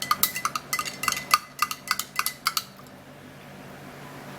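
A spoon stirring a drink in a cup, clinking against the sides about four or five times a second, and stopping a little under three seconds in.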